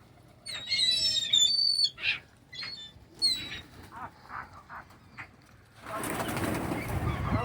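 Birds calling with sharp, high squawks about a second and three seconds in, then a burst of wings flapping from about six seconds in as birds fly in to be fed.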